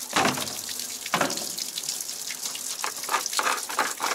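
Water running from a tap into a ten-litre canister as it fills, a steady rush with uneven splashing.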